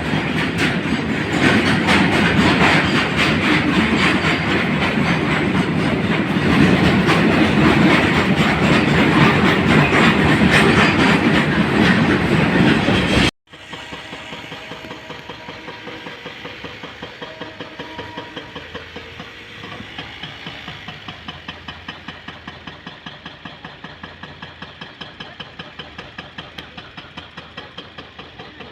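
A goods train rolling past loudly, its wagon wheels clattering over the rails. About halfway through the sound cuts abruptly to a much quieter diesel locomotive engine running with a steady pulsing beat.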